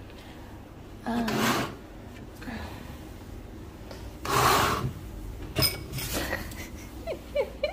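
Table top being wiped down by hand, two rubbing strokes about a second and four and a half seconds in, with a few short squeaks near the end, wiping away a cup stain.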